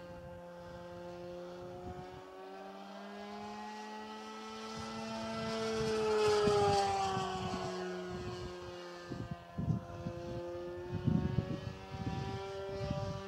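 Radio-controlled model airplane flying past overhead, its motor and propeller giving a steady whine of several tones that rises in pitch and grows louder to a peak about halfway through, then drops in pitch as it moves away. Wind buffets the microphone in gusts in the second half.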